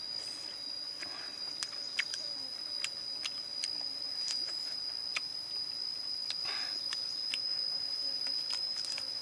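A steady, high-pitched insect drone that holds one pitch without a break, with many sharp mouth clicks and smacks of someone chewing grilled beef ribs.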